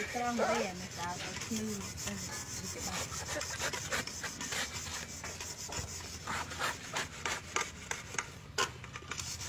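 Coconut husk being scraped and rasped in quick, irregular strokes.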